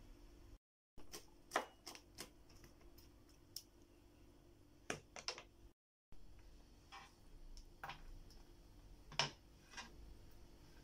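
Scattered light clicks and taps of kitchen food-prep handling around a cutting board and plastic container, over a faint steady hum; the sound cuts out briefly twice.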